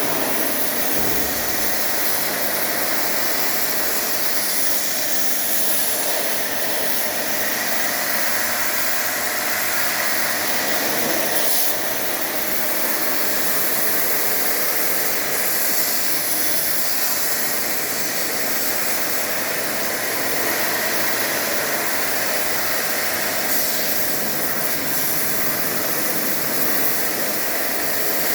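Pressure-washer pump running steadily with the continuous hiss of a high-pressure water jet spraying an air conditioner unit.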